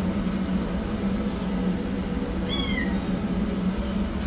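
A kitten gives one short, high-pitched meow that falls in pitch at its end, about two and a half seconds in, over a steady low hum.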